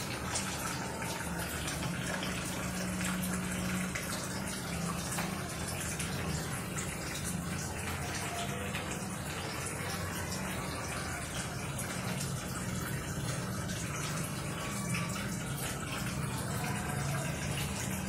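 Water spraying and splashing steadily into a plastic air-conditioner cleaning catch sheet, with a low steady hum underneath.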